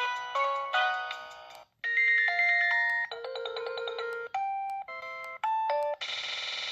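Preloaded LG LX5550 ringtones playing: a chiming electronic melody fades out, and after a brief silence just before two seconds in, another ringtone starts with a run of held electronic notes. About six seconds in it changes to a denser, fuller chord sound.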